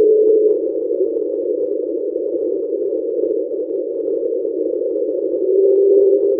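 Hydrophone recording of an unexplained deep-ocean sound: a steady mid-pitched hum within a narrow rough band of noise, easing a little in loudness about half a second in and swelling again near the end.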